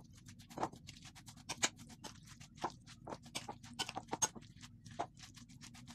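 A metal spoon stirring a wet mixture of shredded vegetables and gram-flour batter in a glass bowl: quick, irregular clinks and scrapes, several a second, with a few louder knocks against the glass.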